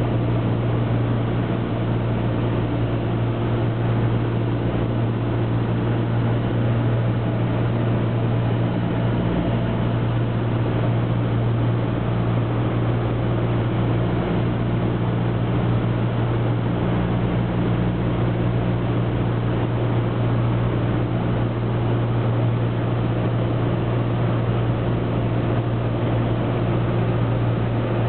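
Cessna 172's piston engine and propeller droning steadily, heard inside the cabin over rushing air, on the approach to land.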